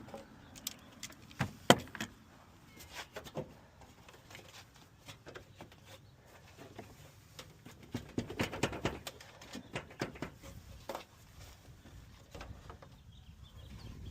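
Scattered clicks and knocks of hand tools and plastic trim being worked on a car's front end, with a sharp knock about two seconds in and a busier stretch of rattling and clicking later on.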